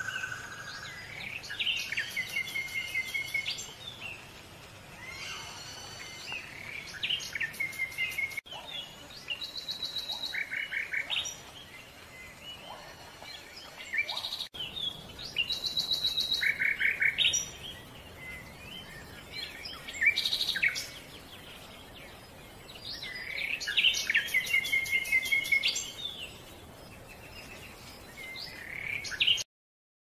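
Songbird calls: bouts of rapid, high, repeated chirps and short whistled notes, each lasting a second or two, with quieter gaps between. The sound cuts off abruptly just before the end.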